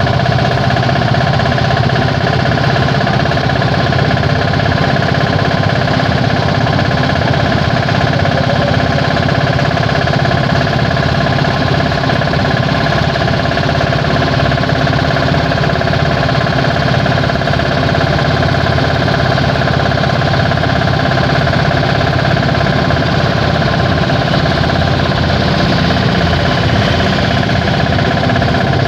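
Indian auto rickshaw's engine running steadily at an even speed, with no revving.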